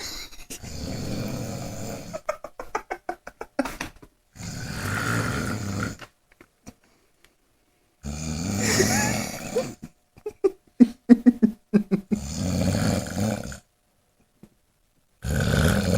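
A sleeping person snoring heavily, truck-like: several snores of a second or two each, some with a fast rattle, separated by short silent pauses.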